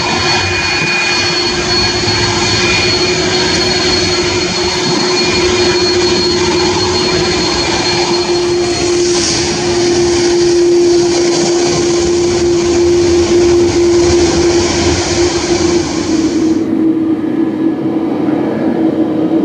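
Jet engines of a China Airlines Airbus A330-300 airliner running on the ground: a loud, steady hiss with a constant hum-like tone and a thin high whine. About 17 seconds in the sound changes abruptly, losing most of its hiss.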